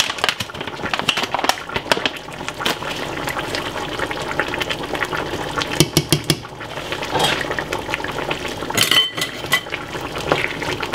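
Brown stew chicken gravy bubbling and popping at a boil in a frying pan, a steady crackle of small pops, with a few sharper clicks about six and nine seconds in.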